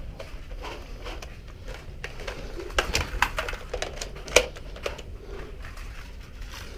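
Irregular sharp clicks and taps of an office Nerf fight, a cluster of them about three seconds in and the loudest a little after four seconds.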